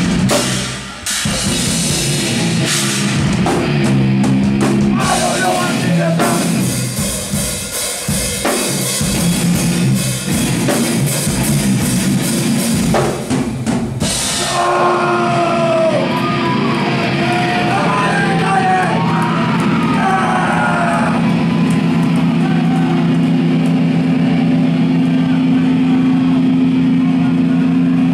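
Live hardcore band playing loud and heavy: pounding drum kit with crashing cymbals under distorted electric guitars. About halfway through the drums and cymbals drop out and a held guitar chord rings steadily to the end.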